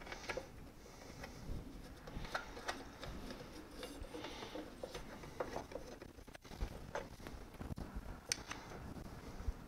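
Faint, scattered small clicks and light scraping of hands handling a spool-holder bracket and its bolts on a 3D printer's metal control box, with one sharper click near the end.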